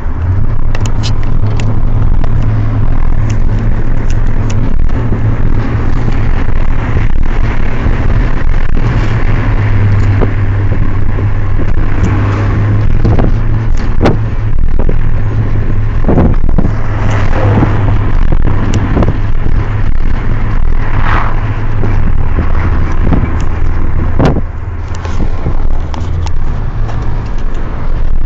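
A GTI car's engine and road noise heard from inside the cabin at highway speed: a steady low drone under a road-noise hiss, with scattered clicks and rattles.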